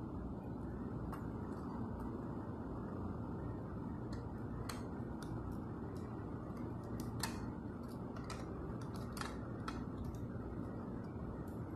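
Light, sharp clicks and taps from a hand handling the top of a First Gear scale-model front-loader garbage truck, scattered at first, then bunched from about four to ten seconds in, over a steady low background noise.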